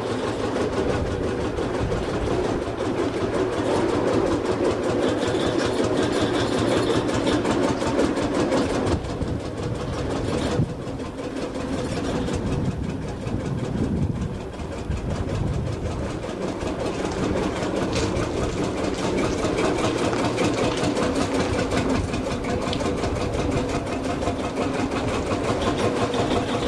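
Tractor engine running steadily with a fast, even clatter while towing, briefly quieter for a few seconds about ten seconds in.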